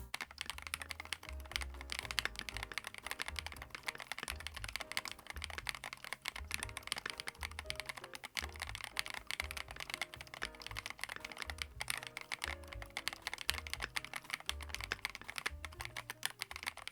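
Typing on a custom mechanical keyboard fitted with keycaps: a rapid, uneven stream of clacking keystrokes, with soft music underneath.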